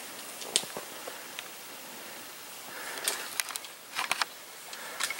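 Scattered crackles and snaps of twigs in snow-covered willow brush, one about half a second in and a cluster about three to four seconds in, over faint hiss.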